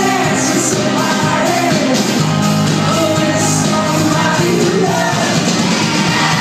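Rock band playing live, with electric guitars and singing, heard loud from within the audience.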